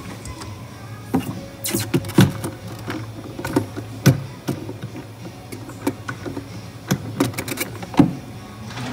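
Plastic knocks and clatter of a lidded blender jar being handled and seated in a commercial drink blender's enclosure, several sharp clicks spread over a few seconds, with a low steady hum underneath.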